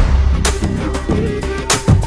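Background music with a heavy bass line and drum hits.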